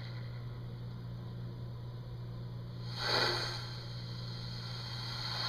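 A steady low hum, with one short breathy rush of noise about three seconds in.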